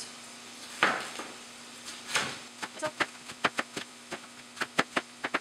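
Knife slicing through a head of red cabbage onto a plastic cutting board: two slower slicing cuts, then, from about two and a half seconds in, quick sharp knife strokes on the board, a few per second.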